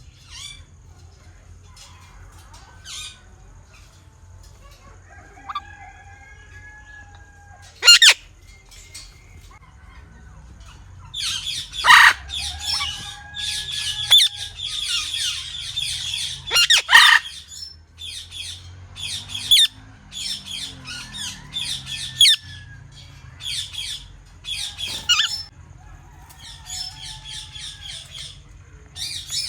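Parakeets squawking and chirping in rapid, harsh, repeated calls. Loud screeches come about eight seconds in and again around twelve and seventeen seconds in, with a dense burst of rapid chatter between them and softer whistled notes here and there.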